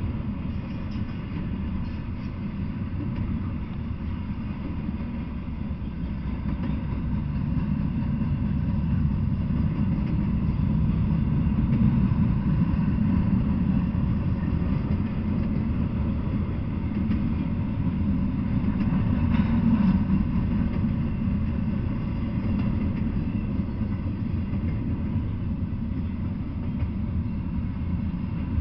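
Double-stack intermodal freight train rolling past: a steady low rumble of wheels on rail, swelling louder about a third of the way through.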